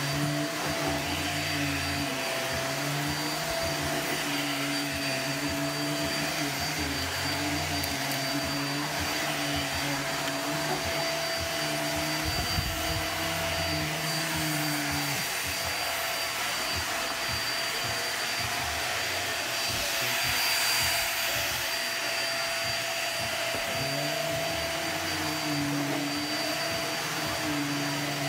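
Upright bagless vacuum cleaner running steadily while it is pushed back and forth across carpet: a continuous motor whine over rushing air, with a deeper hum that comes and goes and a brief swell about twenty seconds in.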